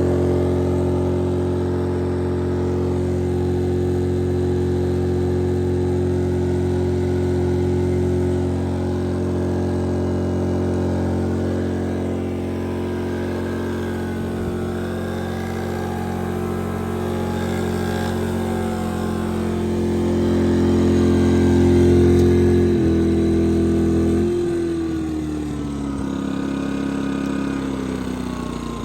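Pulsar 2300 inverter generator's engine running hard under heavy load from a heater and a grinder. About 23 seconds in the sound changes abruptly and the engine speed falls away in a downward glide over the next few seconds, as the load comes off.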